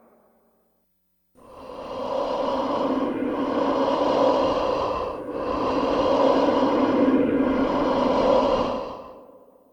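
Ghost-breathing sound effect: one long, drawn-out, breathy sound that swells in about a second and a half in and fades out near the end, dipping briefly about every two seconds.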